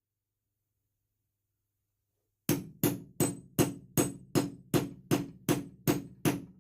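A hammer striking a hole punch through a wetted leather shoe sole: after a short quiet start, eleven sharp, evenly spaced blows, a little under three a second.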